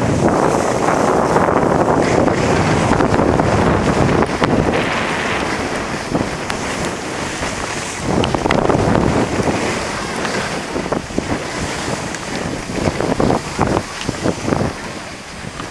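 Wind rushing over the microphone of a skiing camera, with the hiss and scrape of skis running over packed snow, rising and falling in uneven surges.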